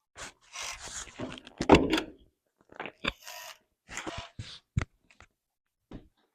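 Hotel room door being opened, with rustling and a heavy thunk about two seconds in, followed by scattered clicks and short rustles.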